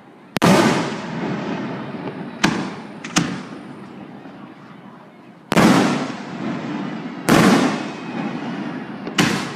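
Aerial firework shells bursting overhead: six sharp bangs, two of them close together, each followed by a long echoing rumble that fades over a second or more.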